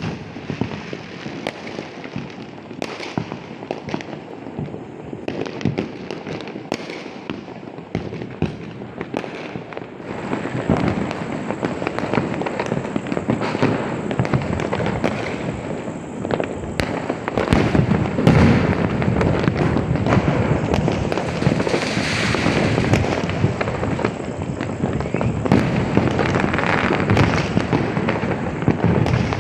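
Firecrackers bursting in rapid, dense crackling volleys of sharp pops. The bursts grow louder and thicker about a third of the way in.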